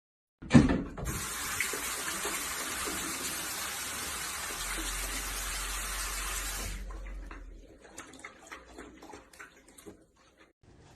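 Water running steadily, as from a tap, for about six seconds, then stopping; a brief sharp sound comes just before it starts and a few faint clicks follow.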